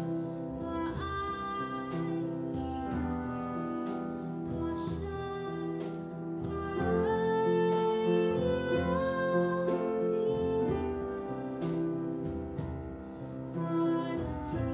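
A woman singing a slow Mandarin ballad in Chinese, accompanied by clarinet, piano and double bass, with a cajon tapping a light beat about once a second.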